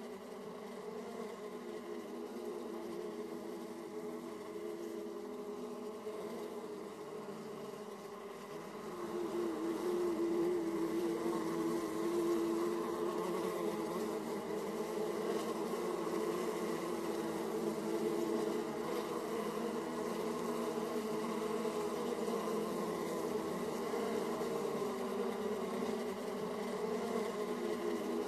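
Honeybees buzzing at the hive entrance, a dense many-pitched hum of bees flying in and out. The hum grows louder about nine seconds in.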